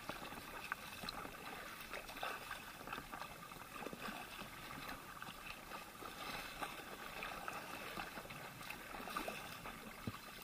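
Faint lapping and small splashes of choppy sea water against a drop-stitch inflatable kayak and its paddle blades as it is paddled along, in many small irregular splashes.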